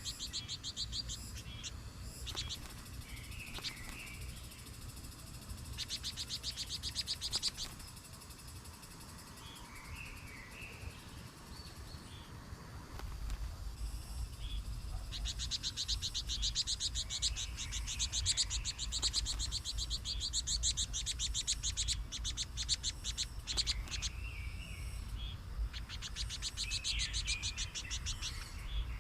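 Birds chirping in rapid high-pitched trills that come in runs, the longest lasting several seconds, over a low steady hum.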